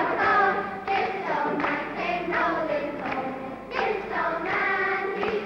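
A group of children singing a song together in chorus.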